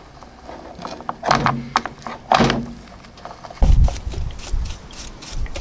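Steel gears and shafts of a riding mower's opened 5-speed transaxle clinking and knocking as a gear shaft is worked out of the case. About three and a half seconds in, a loud low rumble is followed by quick scraping as a gear is scrubbed with a brush in a pan of oil.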